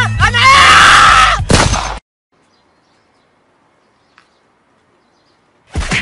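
A man screaming loudly over hip-hop music with a heavy bass line, both cutting off abruptly about two seconds in.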